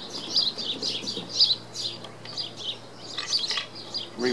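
A small bird chirping over and over, about two short high chirps a second, over a faint steady hum.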